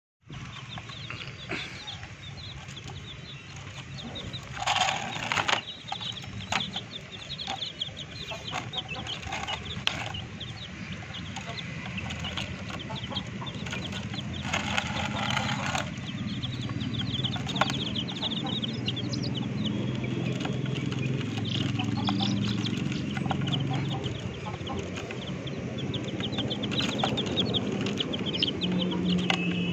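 Domestic chicks peeping rapidly and continuously, with adult chickens clucking underneath. Two louder bursts break in about five and fifteen seconds in.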